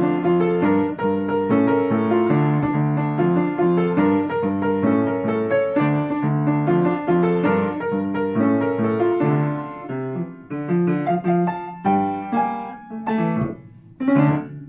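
Upright acoustic piano played with both hands in a steady flow of notes. About ten seconds in it thins to separate chords, and a last loud chord near the end is left to ring and fade.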